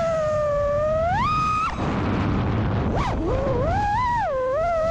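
FPV quadcopter's brushless motors and props (Brotherhobby Avenger 2207.5 2350kv with HQProp J37) whining, the pitch rising and falling with throttle. The whine climbs, cuts off suddenly just under two seconds in, and returns about a second later, rising and wavering again.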